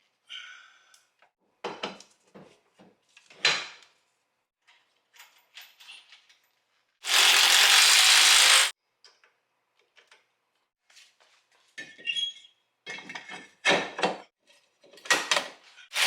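Metal clinks and knocks of tools against the hub, with one loud burst of about a second and a half, about seven seconds in, from an impact wrench running a hub bolt in.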